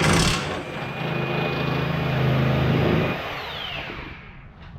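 Power wrench spinning out a 14 mm suspension control-arm bolt: a loud start, about three seconds of steady running, then the motor winding down with a falling whine.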